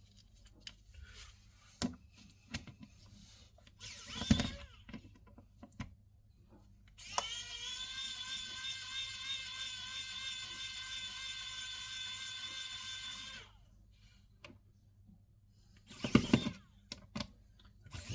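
Small handheld electric screwdriver or drill motor spinning up and running for about six seconds as a steady whine, after scattered handling clicks and a knock. A short clatter of knocks comes near the end.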